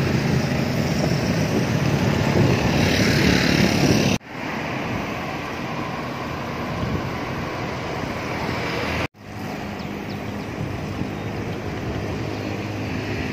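Wind rushing over the microphone of a camera carried on a moving bicycle, a steady loud rumble with road noise under it. It cuts out abruptly twice, about four and nine seconds in, and picks straight up again.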